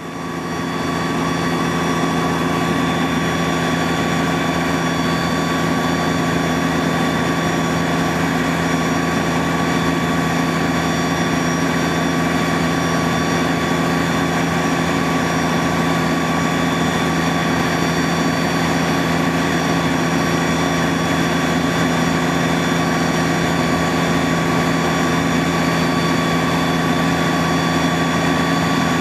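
Fire engine running steadily with its fire pump engaged during a pump test: an unbroken mechanical drone with several held tones, fading in at the very start.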